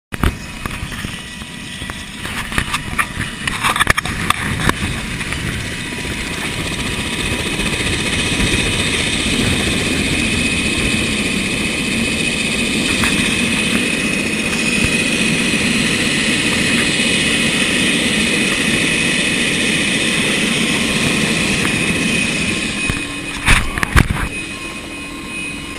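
Helicopter running on the ground with its rotor turning: a steady high turbine whine over a wash of rotor noise, growing louder over the first several seconds as the camera nears it. Near the end it turns duller, with two sharp knocks as people climb into the cabin.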